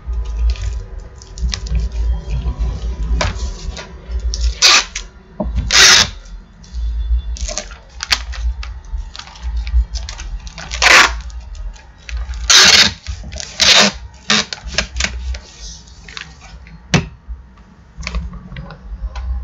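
Clear packing tape pulled off a handheld tape-gun dispenser in about five loud strips of roughly half a second each, with the crinkle and rustle of a padded paper mailer being handled and pressed down between them.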